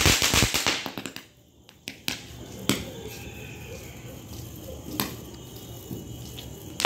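A ground firework fountain hissing and crackling loudly, which cuts off about a second in as it burns out. After that come sharp single pops every second or two.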